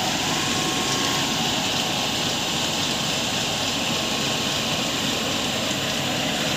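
Converted e-rickshaw electric motor, run from a 36 V battery, spinning a belt pulley at steady speed: an even whir with a faint steady whine.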